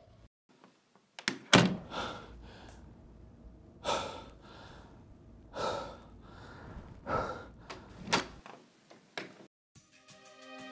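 A door latch clicks as the door is opened, then a man breathes hard in a few heavy gasps about a second and a half apart while straining against his bonds.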